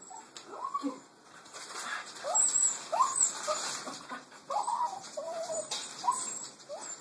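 A dog whining in a string of short, high-pitched cries that rise and fall, repeated several times.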